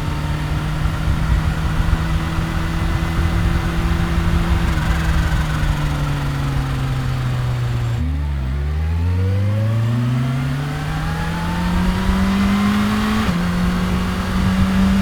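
2015 Kawasaki Ninja H2's supercharged inline-four engine running at a steady, slowly sagging speed, then dipping about halfway through and pulling up steadily as the bike accelerates, with a small drop in pitch near the end at a gear change.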